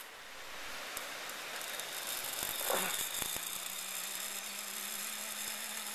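Zip line trolley pulleys running along the steel cable, a steady whirring hiss, with a few light knocks around halfway and a steady low hum from then on.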